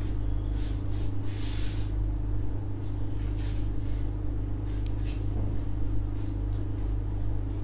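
A steady low electrical-type hum throughout, with several short soft swishes of clothing rustling as the wearer turns around in a suit and dupatta.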